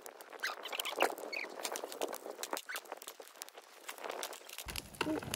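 Jiffy Pop popcorn starting to pop in its foil pan over a wood campfire: scattered, irregular pops mixed with the crackle of the burning wood.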